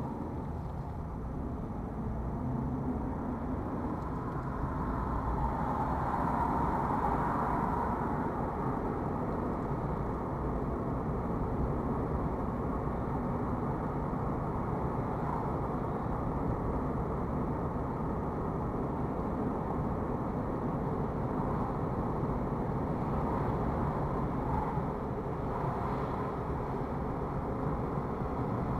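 Engine and tyre noise heard inside a moving car's cabin. It grows louder over the first several seconds as the car speeds up from a near stop, then holds steady at about 32 mph.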